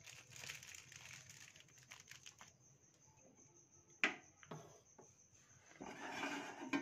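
Faint crinkling and rustling of a packet of powdered milk being handled. A sharp click comes about four seconds in, and the rustling starts again near the end.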